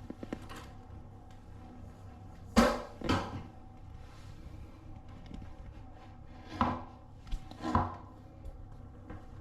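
A few short sharp knocks over a low steady hum: two close together a few seconds in, the first the loudest, and two more later on.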